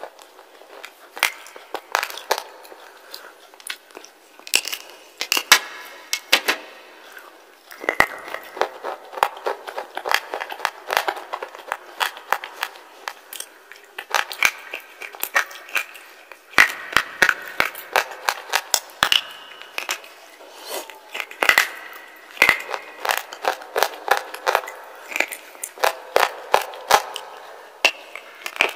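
Wet slate being bitten and chewed close to the microphone: a dense run of irregular sharp crunches and crackles.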